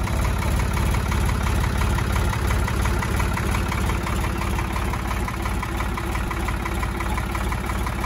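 Ford 3.3-litre three-cylinder diesel engine of a 1985 Ford 555A backhoe idling steadily, with an even, rapid beat of firing strokes.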